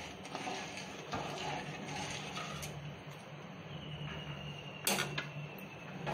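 Quiet stirring of sugar water in an aluminium kadai on the stove with a wooden spoon: a steady low hiss and hum with a few light clicks, and one sharper knock of the spoon or pan about five seconds in.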